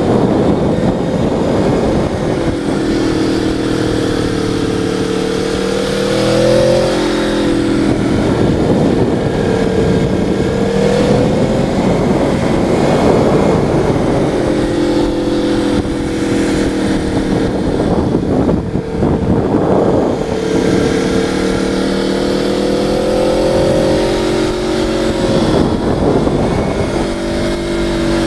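Vehicle engine heard from a helmet-mounted camera, its pitch rising and falling slowly and repeatedly as the throttle changes, under a steady rush of wind noise.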